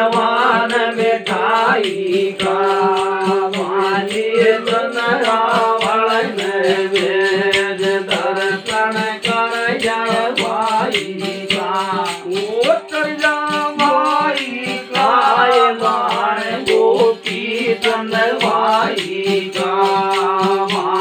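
A man singing a folk song in a chant-like style over a steady drone from a long-necked folk string instrument, with a quick, even clicking beat underneath.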